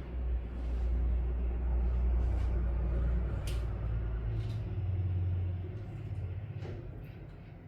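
A low rumble that swells over the first second or two, holds, then fades away by about six seconds in, with a few light clicks on top.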